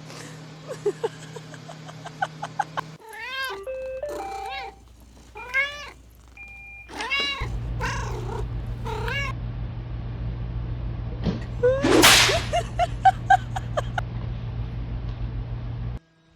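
A cat meowing: a quick run of short calls, each rising and falling in pitch. About twelve seconds in comes a single loud burst of noise.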